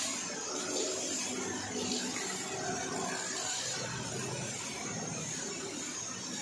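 Pressure washer running steadily, its jet hissing as it sprays snow foam and water over a motorcycle.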